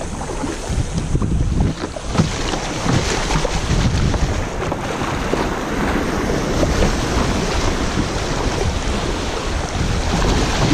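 River water rushing through a riffle and splashing against a kayak's hull, with wind buffeting the microphone. The rushing grows fuller about two seconds in as the kayak runs into the rough water.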